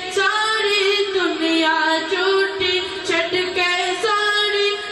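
A high-pitched voice singing a naat, a devotional song in praise of the Prophet, holding long, ornamented notes that glide between pitches.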